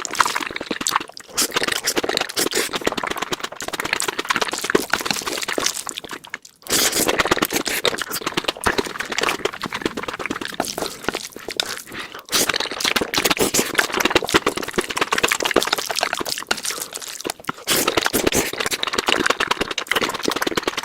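Noodle eating sounds sped up to four times speed: a dense, rapid stream of wet chewing and slurping clicks, broken by short pauses about every five to six seconds.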